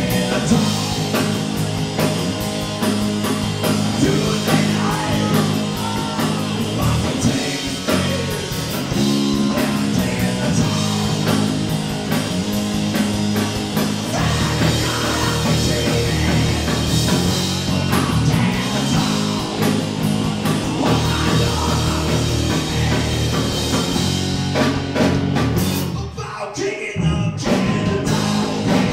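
Live rock band playing electric guitars and a drum kit, with a singer at times. Near the end the low end drops out for about a second in a short break, then the band comes back in.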